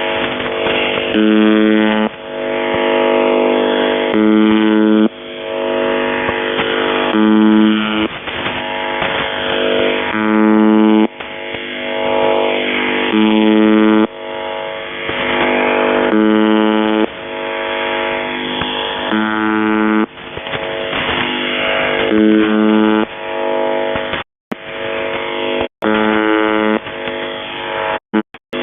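UVB-76 'Buzzer' shortwave station received on 4625 kHz: a harsh buzzing tone sounding for under a second about every two seconds, with static and interference between the buzzes. Near the end the signal cuts out to silence several times in quick succession.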